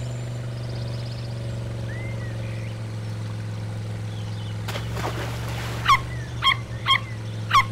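Steady motor hum of a small amphibious vehicle crossing water. In the last couple of seconds an animal chirps four times, short squeaky calls that sweep up and down in pitch.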